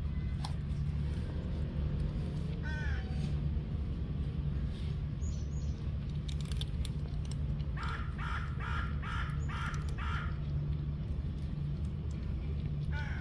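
An animal calling: one call a few seconds in, then a quick run of about six short calls, about two a second, over a steady low background rumble.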